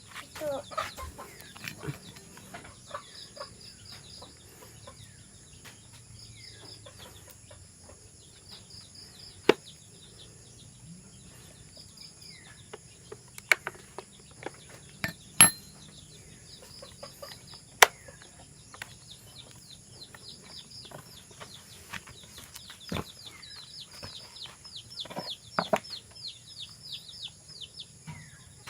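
Chickens clucking and small birds chirping, with a few scattered sharp metallic clinks, the loudest around the middle.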